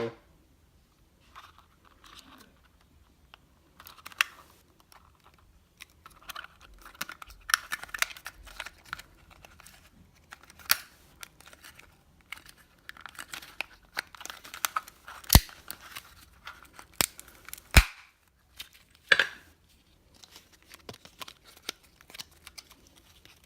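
A product box and its packaging being opened and handled by hand: rustling, scraping and crinkling with scattered small clicks, and two sharp clicks louder than the rest in the second half.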